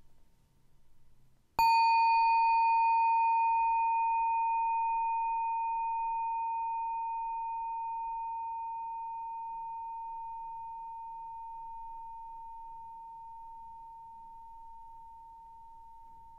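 A meditation bell struck once about a second and a half in, ringing with one clear tone and fainter higher overtones. It fades slowly and is still ringing at the end.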